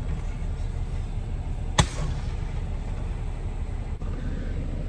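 Steady low rumble with one sharp crack about two seconds in.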